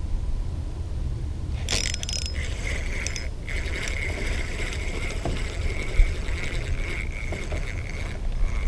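Spinning reel being cranked to reel in a hooked fish: a steady whir from the reel's gears, with a short rattle of clicks about two seconds in and a low steady rumble underneath.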